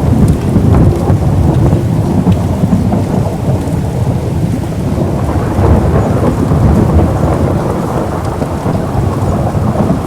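Rainstorm: heavy rain falling over a continuous deep rumble, with the level swelling and easing slightly but no single sharp thunderclap.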